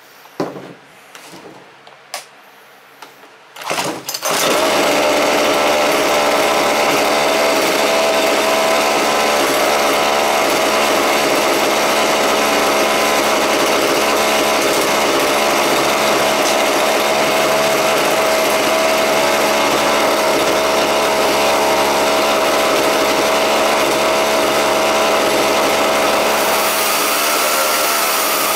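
Husqvarna 141 two-stroke chainsaw engine starting up about four seconds in, then running steadily at too fast an idle, fast enough that the chain keeps spinning, while its idle speed screw is turned down. The engine's pitch shifts near the end.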